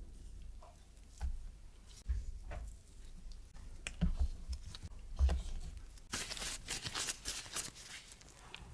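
Close-up handling of cookie dough as it is portioned and shaped: soft thumps and light taps, then a spell of crisp rustling and crinkling about six seconds in.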